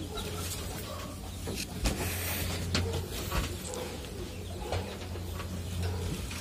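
Soft rustling and a few light knocks of bedding being handled, with birds calling in the background over a steady low hum.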